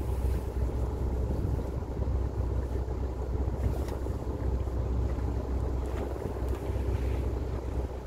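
Wind buffeting the microphone on the deck of a fishing boat at sea: a steady low rumble with a few faint ticks.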